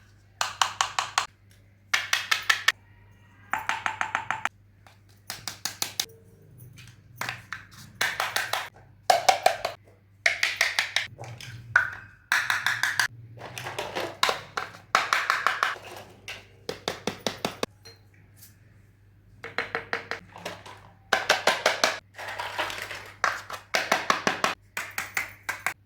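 Small plastic toy pieces clicking and tapping in quick bursts: clusters of rapid ticks, each about half a second to a second long, repeated with short pauses between.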